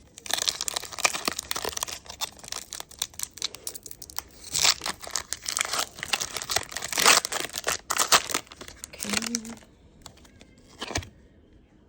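Foil wrapper of a Pokémon TCG booster pack crinkling and tearing as it is opened. The crackling is dense for about eight seconds, then dies away, with a single click near the end.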